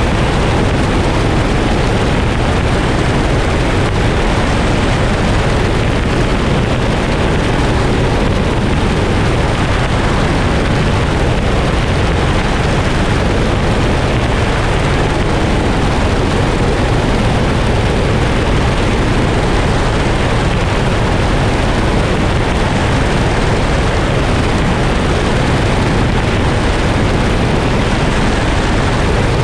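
Helicopter in steady cruise flight: a loud, unchanging rush of engine, rotor and airflow noise.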